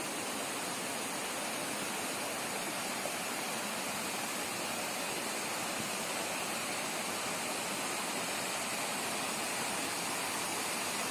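Waterfall and rocky brook cascading over boulders: a steady, even rush of falling water.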